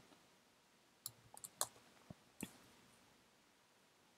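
Faint computer keyboard typing: about half a dozen short key clicks between one and two and a half seconds in.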